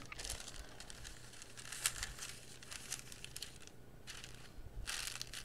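Sheet of wax paper crinkling as it is laid down by hand and smoothed flat, in soft scattered rustles with a louder rustle near the end.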